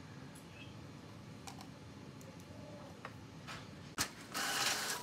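A few faint clicks, then about four seconds in a Brother inkjet printer starts printing, its paper feed running loudly for under a second.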